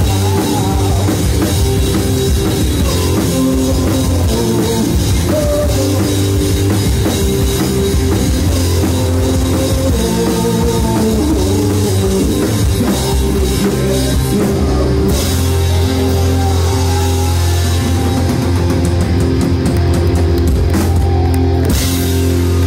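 Live punk rock band playing loud: distorted electric guitar, electric bass and drum kit, with a run of cymbal crashes toward the end as the song draws to its close.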